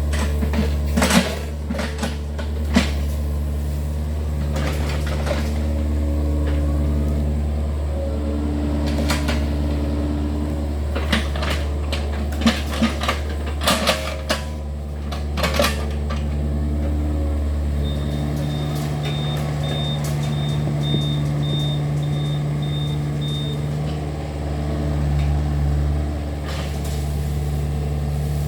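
Yanmar excavator's diesel engine running steadily while digging, with scattered knocks and clunks from the bucket and arm working. A high beep sounds about twice a second for several seconds in the middle.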